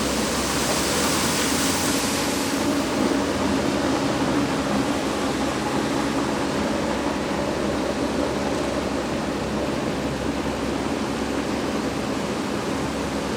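Steady rushing of floodwater from a burst water main pouring along the street, with a brighter hiss in the first couple of seconds.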